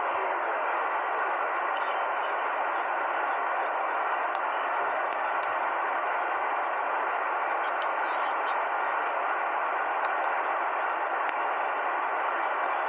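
Steady shortwave radio static: an even hiss of band noise through a single-sideband receiver's narrow audio passband on the 40-metre amateur band, with no station transmitting and a few faint ticks.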